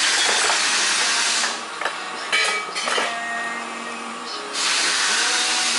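Compressed air hissing in two long blasts, with a few metallic clinks in the quieter gap between them.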